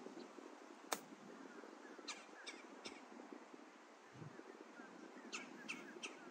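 A wedge strikes a golf ball with one sharp click about a second in, on a chip shot off the grass. Birds call in short notes, three about two seconds in and three more near the end.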